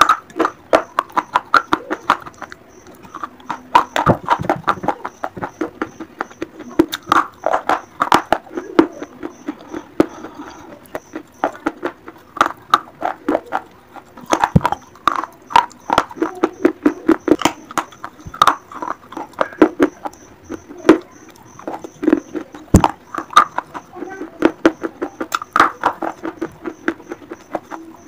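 Pieces of a terracotta clay pot (a gullak, clay piggy bank) being bitten and chewed: rapid runs of sharp, brittle crunches, many a second, broken by short pauses.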